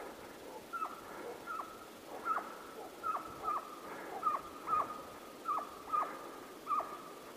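Estonian hounds baying faintly in a steady run of short calls, each dropping in pitch, about two a second. This is the hounds giving voice as they run a hare's trail.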